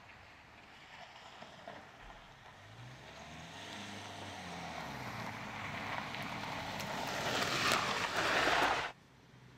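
Subaru Outback driving up a gravel track and passing close by: engine note and tyres crunching on gravel grow steadily louder, then cut off abruptly near the end.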